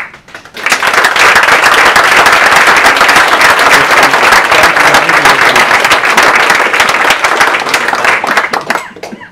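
An audience applauding, starting within the first second, holding steady and dying away near the end.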